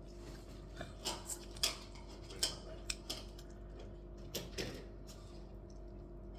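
Eating utensils clinking and tapping against dishes and bowls: about eight light, scattered clicks between about one and five seconds in, over a steady low hum.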